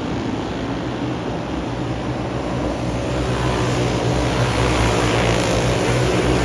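Race car engines running at speed on the track, growing louder about halfway through.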